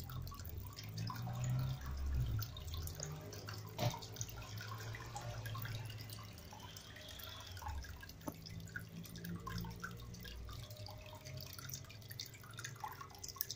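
Small water drips and trickling at an aquarium's water surface, with scattered light ticks, a sharper click about four seconds in and another about eight seconds in; a low rumble comes and goes underneath.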